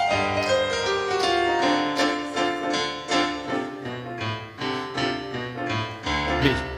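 Piano music: a quick falling run of notes, then chords struck in a steady rhythm.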